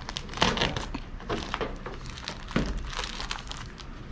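Black plastic bag wrapped around an insulated flex duct crinkling and crackling irregularly as gloved hands grip it and cut it open with a utility knife.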